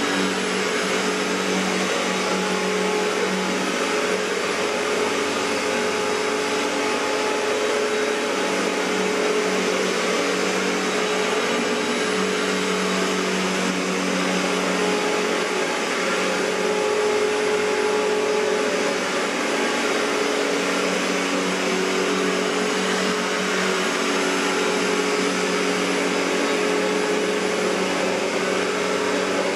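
1994 Riccar N2000 upright vacuum cleaner with its Panasonic-made motor running steadily: a constant motor hum over rushing air, holding one pitch throughout.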